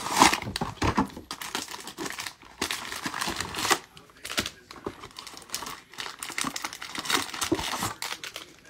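Cardboard trading-card hobby box being opened and its foil-wrapped card packs pulled out and set down: crinkling and rustling of cardboard and foil in irregular bursts, loudest right at the start.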